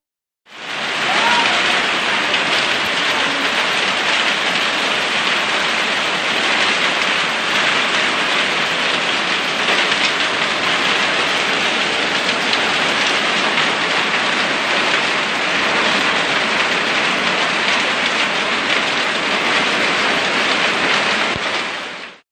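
Heavy hail with rain pelting wet ground: a dense, steady hiss of countless small hailstone impacts. It starts about half a second in and cuts off suddenly near the end.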